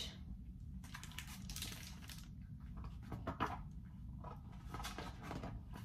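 Faint, irregular rustling and soft handling noises of a hardcover picture book being handled and opened, with a low steady room hum underneath.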